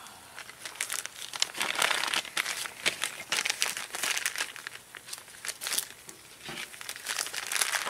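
Spicy-sauced pork back ribs sizzling and crackling over hot charcoal, a dense irregular crackle that grows louder about a second in.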